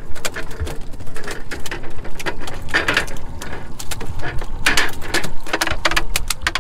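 Landed halibut flopping on a fibreglass boat deck: irregular slaps and thuds, with the loudest ones about three and five seconds in.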